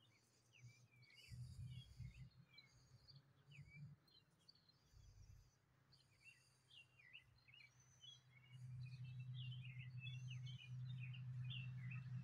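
Small birds chirping in short, repeated calls. A low steady hum grows louder about eight seconds in.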